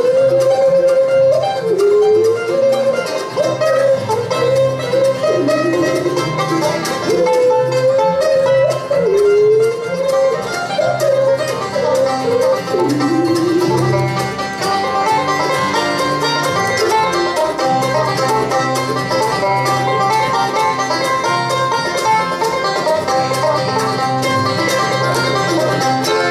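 Live bluegrass band playing a train song: a woman sings over banjo and guitar for about the first half, then the singing stops and the banjo carries an instrumental break with rapid picked notes.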